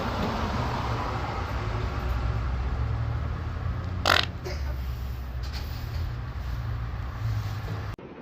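A long, low fart lasting about eight seconds, with a short sharp noise about four seconds in; it cuts off just before the end.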